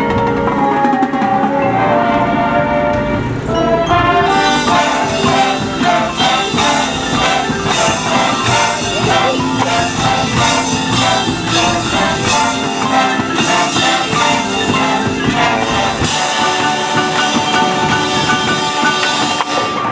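High school marching band playing its field show: brass and drumline, with the full band entering loudly about four seconds in after a lighter passage.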